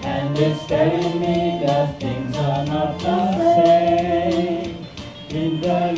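Karaoke: a solo voice singing a slow melody in long held notes over a backing track with a steady beat.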